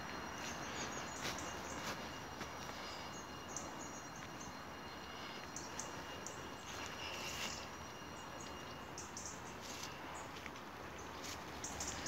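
Footsteps crunching through dry leaf litter on a woodland path, irregular crackles and rustles. A faint, steady, high-pitched whine runs underneath and stops about three-quarters of the way through.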